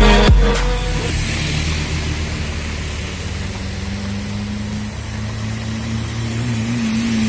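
Light trucks and motorcycles passing on a wet road, with tyres hissing through standing water. A truck's engine hums steadily and rises slightly in pitch and loudness near the end as it approaches. The end of an electronic intro music cuts off in the first moment.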